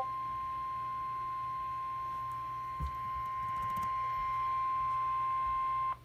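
Emergency alert tone for a severe thunderstorm warning: a single steady tone a little above 1 kHz, the 1050 Hz weather-radio warning alarm tone, cutting off just before the end.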